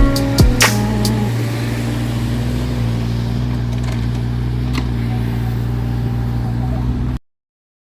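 Mini excavator's diesel engine running at a steady speed, a low even drone that cuts off abruptly about seven seconds in.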